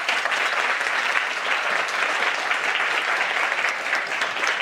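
Audience applauding steadily, a dense patter of many hands clapping that begins to die down near the end.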